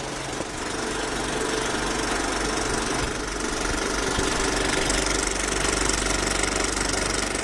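Film projector running: a steady, fast mechanical clatter over a low hum.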